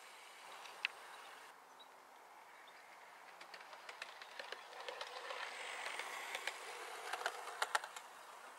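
Model railway locomotive running along garden track, its wheels clicking over the rail joints; the clicks come faster and louder as it approaches in the second half and peak near the end.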